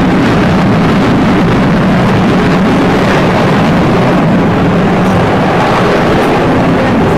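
A fighter jet flying overhead, its engine a steady, loud rushing noise with a low hum beneath it; the hum weakens about six seconds in.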